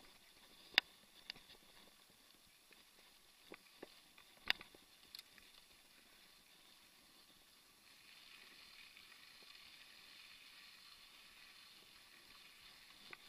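Mountain bike rolling along a dirt track: sharp clicks and knocks from the bike over bumps. Two loud ones come about a second in and about four and a half seconds in, the rest are lighter. From about eight seconds in there is a faint steady hiss.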